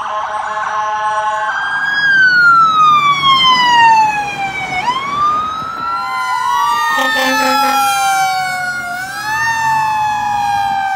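Emergency vehicle sirens. A fast yelp cuts to a siren wailing slowly down and back up. From about six seconds in, several sirens overlap, a low horn sounds for about a second, and near the end another wail rises and falls.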